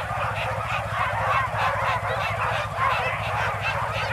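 Many sled dogs yelping and howling at once in a dense, continuous chorus, with a steady low hum underneath.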